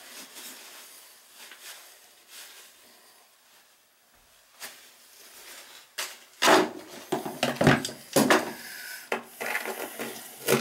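A few faint clicks, then from about six seconds in a run of louder scrapes and knocks as tongue-and-groove pliers grip and scrape old toilet wax and debris off the vinyl floor around a rusted toilet flange.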